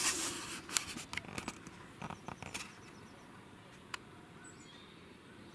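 Handling noise from fingers on a camera: a quick flurry of small clicks and rustles in the first two or three seconds, then a faint background with one more click at about four seconds.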